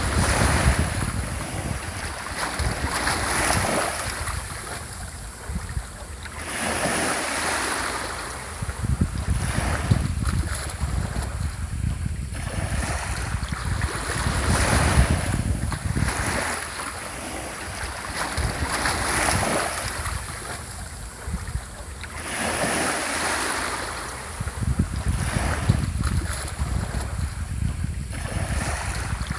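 Small sea waves breaking and washing up the shore, each surge swelling and fading every few seconds. Wind rumbles on the microphone underneath.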